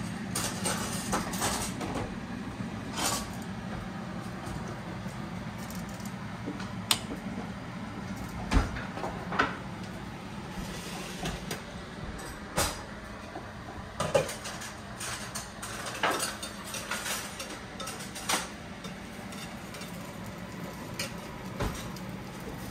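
Kitchen clatter: scattered clinks and knocks of dishes and utensils, with a few sharper knocks, over a steady low hum.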